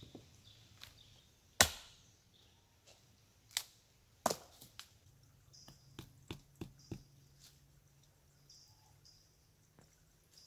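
A wooden post being struck, giving sharp wooden knocks at irregular intervals, the loudest about one and a half seconds in. A run of lighter clicks and snaps follows around the middle.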